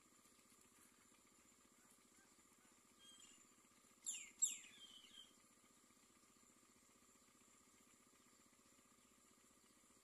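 Two quick high bird chirps, each sweeping sharply downward in pitch, about four seconds in, with a fainter call just before and after, over a faint steady hum.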